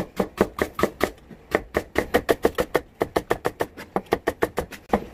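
Kitchen knife slicing a Japanese long green onion (naga-negi) thinly on a cutting board: rapid, even knocks of the blade on the board, about five a second.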